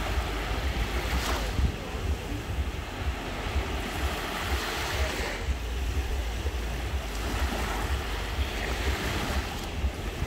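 Small sea waves breaking and washing up the shore, the hiss of the wash swelling every few seconds, with wind rumbling on the microphone.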